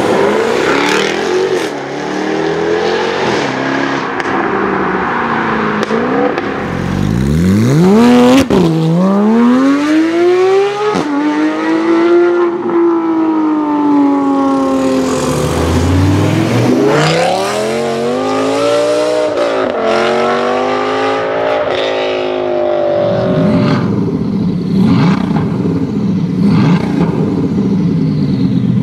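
Supercar engines: a car accelerating hard in a tunnel, its note sweeping up steeply and dropping back between gear changes several times. About three-quarters of the way through, a parked car's engine idling steadily takes over.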